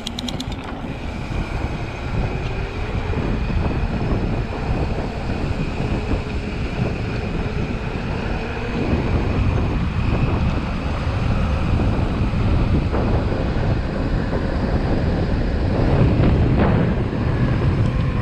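Wind buffeting the microphone and the tyres rumbling over a dirt trail as an Ibis Ripmo AF mountain bike is ridden, with a faint steady high tone in the background.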